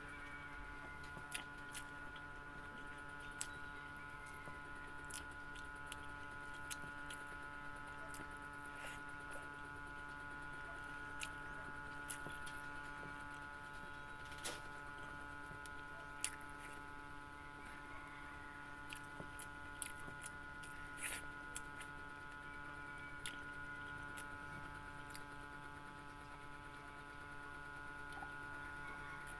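Close-miked eating sounds: quiet chewing and scattered small clicks as rice is picked up by hand from a wooden board, over a steady electrical hum.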